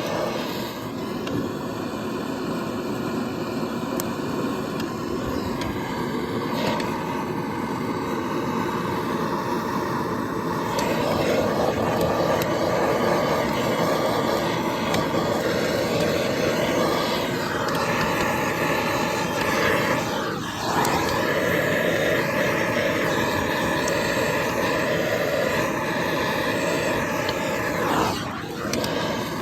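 Handheld gas torch burning with a steady, loud rushing noise as its flame heats a frozen starter motor to free it. The noise swells a little about a third of the way in and dips briefly twice, about two-thirds through and near the end.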